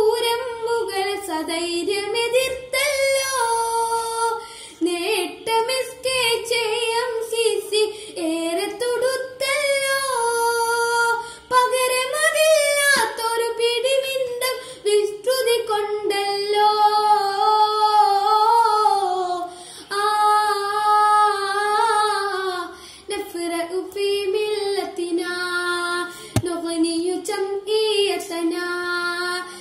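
A boy singing a Malayalam song solo, one voice with long held notes that glide between pitches and short breaks between phrases.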